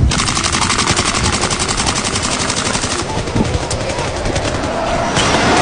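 Rapid automatic gunfire: a fast, even string of shots that grows less distinct after about three seconds.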